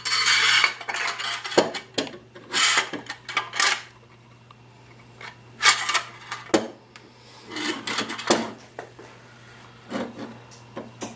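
Remington 870 steel action parts (bolt and action bars) being handled and slid together: short bursts of metal scraping and sliding with a few sharp clicks, separated by pauses, over a faint steady low hum.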